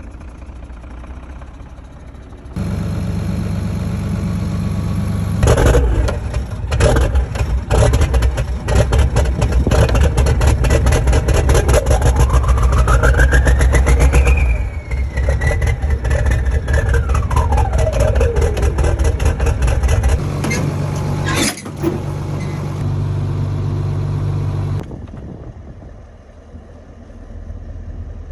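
Kirovets K-700 tractor's turbocharged V8 diesel starting up and revving. Its turbo whistle climbs steadily in pitch, then falls away as the revs drop, with a second short rising sweep later. The engine stops near the end.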